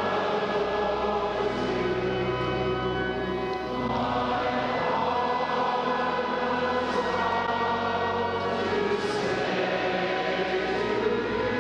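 A choir singing a slow sacred piece in long, held chords, with the chord changing about four seconds in and again near the end.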